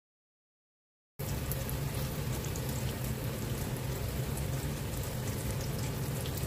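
Silent for about the first second, then handvo batter sizzling steadily in hot tempered oil, with scattered small crackles and a low steady hum underneath.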